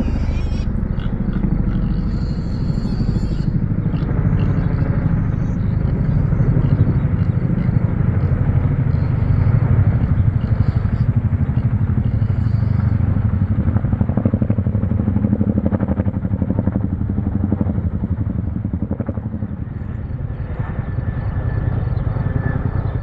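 Military helicopter flying low overhead: a loud, steady rotor throb made of rapid even pulses, easing slightly near the end.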